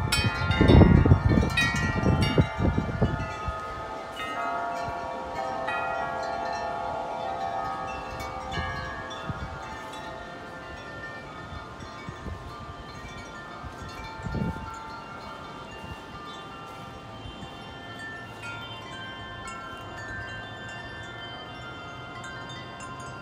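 Wind chimes ringing hard in an extremely strong wind gust, with wind buffeting the microphone for the first few seconds. As the gust passes the ringing grows softer and thins out, and a smaller puff of wind briefly stirs them again past the middle.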